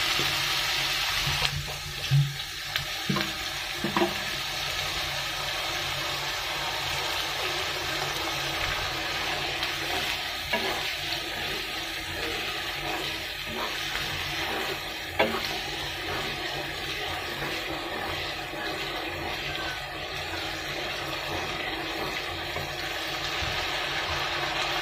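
Water poured into a wok of hot fried spice paste hisses, louder in the first second or so, then settles into a steady sizzle as a wooden spatula stirs it, with a few knocks of the spatula against the pan.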